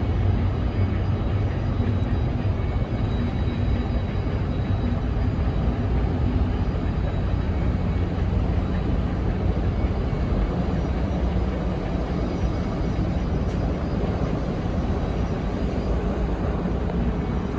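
The laker John D Leitch's engines and propeller wash making a steady, loud, low rumble as the ship passes close by.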